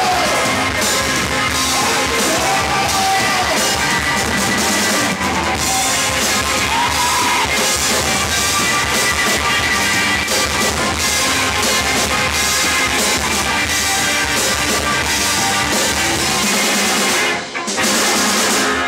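Live rock band playing loud: electric guitar, bass and drum kit, with singing. Near the end the drums and bass drop out, leaving held guitar notes.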